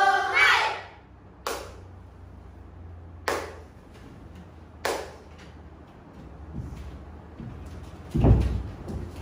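A group of children's voices ends a chanted recitation in unison, cutting off within the first second. Then three sharp clicks come about a second and a half apart, and near the end a dull thump as the performers move about on the stage.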